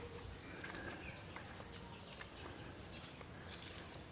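Faint forest ambience with a few faint, short bird chirps.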